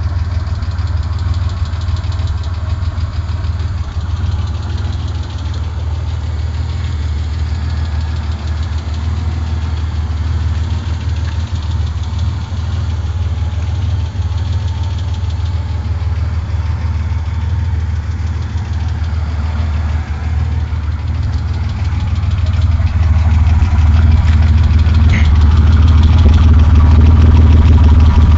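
1991 Ford Explorer's 4.0-litre V6 idling through a GAZ-53 truck exhaust: a deep, steady idle. It grows louder about three-quarters of the way through.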